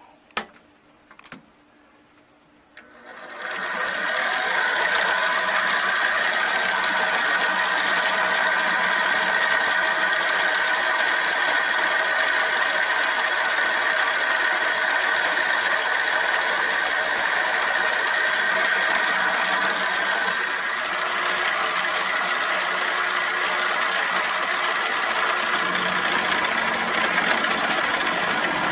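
Two sharp clicks, then about three seconds in a milling machine starts and runs with an end mill cutting into an aluminium block, a steady whining cut that carries on to the end.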